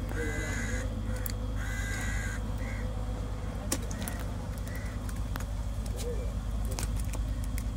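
Crows cawing: several harsh caws in the first three seconds, then a few fainter ones, over a steady low hum, with a few sharp clicks.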